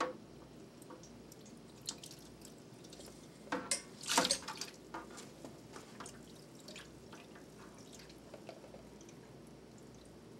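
Wine running from a siphon tube into a plastic bottling bucket, faintly trickling and dripping, with two louder bursts about four seconds in.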